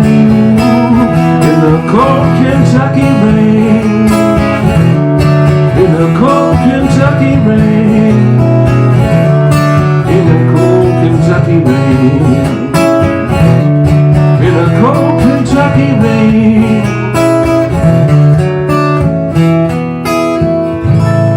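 Instrumental ending of a country song: guitar-led backing music plays on after the vocals, settling onto a held chord at the very end.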